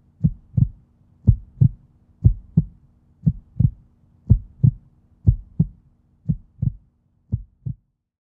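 Heartbeat sound effect: pairs of deep thumps (lub-dub), about one beat a second over a faint steady hum, the last beats a little softer, stopping just before the end.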